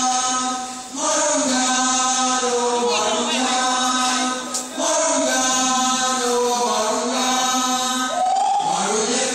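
Group of voices singing together in long held notes over a steady low note, in phrases broken by short pauses about a second in and again near the middle, with a rising vocal slide near the end.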